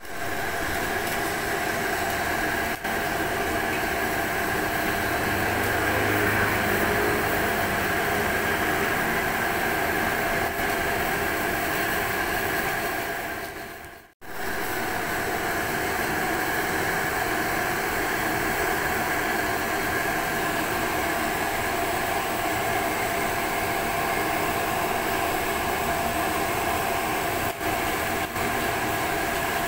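Food deep-frying in a vat of bubbling oil: a steady, dense sizzle with a constant hum under it. It breaks off for an instant about halfway.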